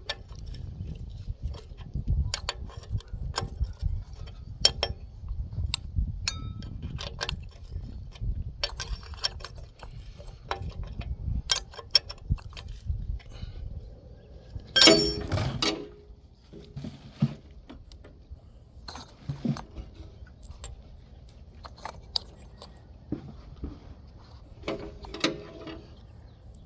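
Ratchet wrench clicking and metal tools clinking as the bolts on a mini excavator's hydraulic tank cover are tightened down. There is one louder clatter about halfway through.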